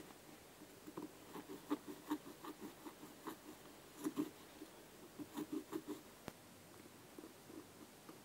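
Scissors snipping through the synthetic upper of an Adidas Predator football boot: a run of short crunchy cuts, some in quick bursts, that stops about six seconds in, followed by a single sharp click.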